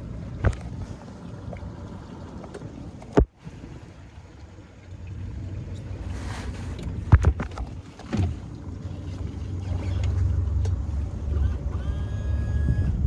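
Motorboat engine running at low speed: a steady low rumble that cuts out briefly about three seconds in and gets louder from about five seconds. A few sharp knocks, about 7 and 8 seconds in, are the loudest moments.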